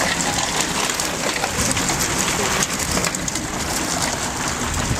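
Road-racing bicycles rattling over cobblestones as riders pass: a dense, steady crackling clatter of many small knocks.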